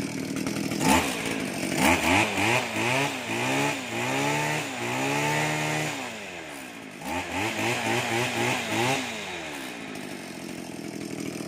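Robin NB231 brush cutter's two-stroke engine revved again and again, its pitch climbing and falling in a series of throttle blips, then settling to a lower steady run near the end. A sharp click about a second in.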